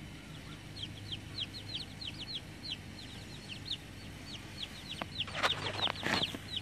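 Baby chicks peeping steadily, short high falling peeps a few times a second. Two louder, rougher chicken calls come near the end.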